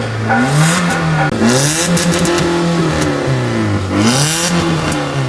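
2017 Hyundai i20 engine revved three times, its note climbing and falling back each time, with a loud exhaust noise that swells with each rev. The noise comes from a rusted centre exhaust pipe with pores and cracks, leaking exhaust.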